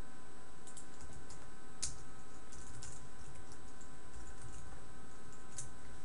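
Typing on a computer keyboard: a scattered run of irregular keystrokes.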